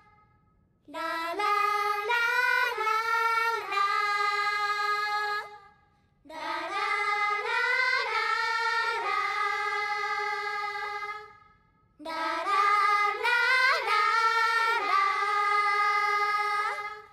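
Young voices singing a melody together without accompaniment, in three phrases of about five seconds each with short breaks between them.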